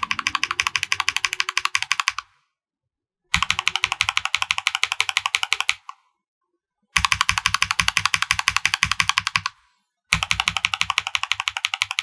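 Fast typing on a KBD75 V2 mechanical keyboard with a brass plate and cherry-profile keycaps, fitted with lubed and filmed tactile switches (Lumia and Glorious Holy Panda). The keystrokes come in four quick runs of about two and a half seconds each, with brief pauses between them.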